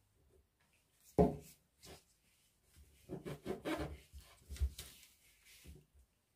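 A glue stick rubbed over folded paper, with paper handled on a tabletop: scratchy rubbing strokes, a sharp knock about a second in and another thump a little later.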